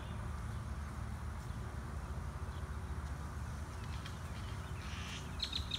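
Wind rumbling on the microphone in the open, with a few short, high bird chirps near the end.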